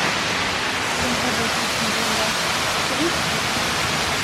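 Waterfall, a steady loud rush of falling water, with faint voices in the background.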